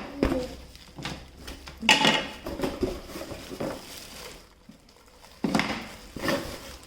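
Hard plastic vacuum cleaner parts and attachments being lifted out of their box and handled: several separate knocks and clatters with rustling between.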